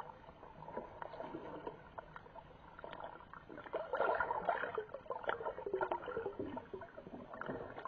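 Muffled underwater water noise from snorkelers swimming, with swirling water, bubbles and fin kicks. It grows louder about halfway through.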